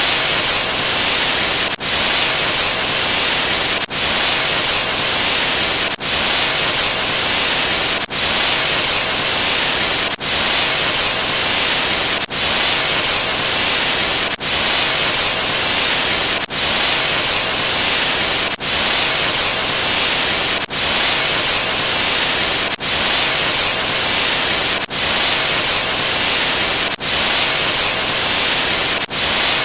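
Loud, steady white-noise static hiss, broken by a very brief dropout about every two seconds, as if the same static sound effect were looped over and over.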